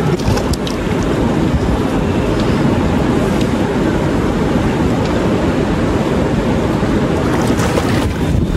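Fast mountain river rushing steadily over boulders, a loud continuous roar of water.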